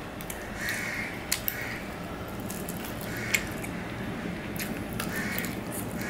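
Crows cawing several times in short calls, over the sharp clicks of fingers against a steel plate as rice and chicken curry are mixed by hand.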